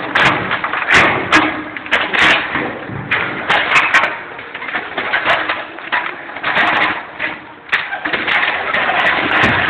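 Irregular knocks, thuds and clatter over a rough steady noise, from euro pallets being shifted and knocked about inside a semi-trailer.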